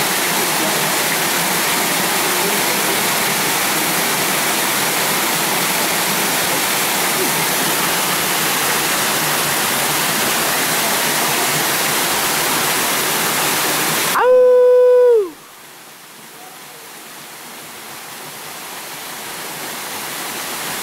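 Waterfall rushing steadily. About 14 s in it cuts off abruptly. A loud pitched tone follows for about a second and drops in pitch as it ends. Then quieter rushing water comes back, growing steadily louder.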